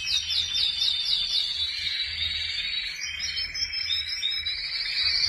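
Domestic canary singing: a fast series of repeated down-slurred notes, then changing trills, rolling into a loud continuous trill near the end.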